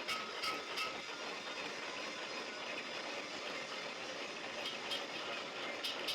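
Steady mechanical running noise with a few sharp metallic clicks near the start and again near the end.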